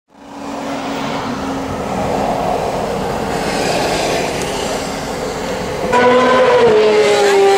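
Steady vehicle and road noise, then from about six seconds in a racing motorcycle's engine note that drops in pitch as the bike passes and then holds steady.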